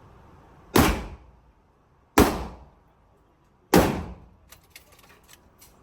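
Three gunshots about a second and a half apart, each ringing out in the echo of an indoor range, followed by a few faint clicks.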